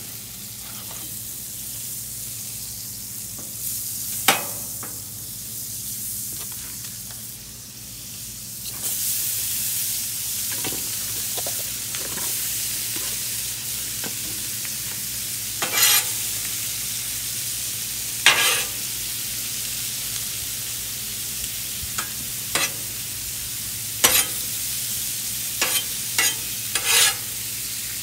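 Butter sizzling on a hot Blackstone flat-top griddle, the sizzle turning much louder about nine seconds in as sliced bell peppers and onions go onto the plate. A metal spatula then clacks and scrapes against the steel griddle several times as the vegetables are turned.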